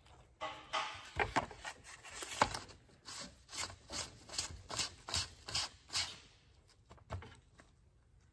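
Milwaukee M18 cordless grease gun being reloaded with grease after running out: its metal grease barrel knocked about in the hands, then screwed onto the gun head in a run of short scraping twists, about two or three a second, with one last knock near the end.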